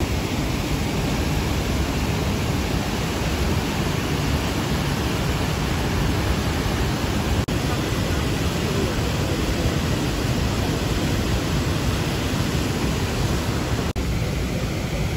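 Steady rushing of a river's rapids and waterfall, an even roar of water with no distinct events; it drops out for a split second twice, about seven and fourteen seconds in.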